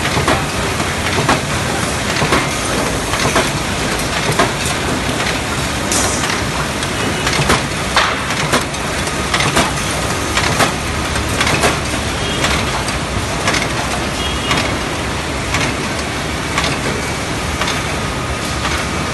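Mawag KS 1 F2 duplex slitter with automatic sheet feeder running, metal sheets being fed through for guillotine and roller slitting: a steady loud clatter of machinery with a sharp knock repeating about once a second.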